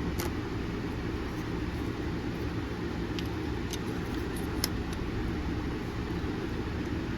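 Steady low background rumble, with a few faint, sharp clicks from small knife parts being handled and fitted during reassembly.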